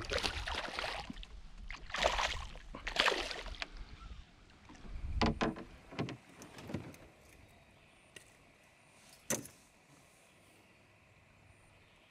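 Hooked smallmouth bass splashing and thrashing at the surface beside a canoe as it is brought to the landing net: three splashes in the first four seconds. A few duller knocks follow, and one sharp click about nine seconds in.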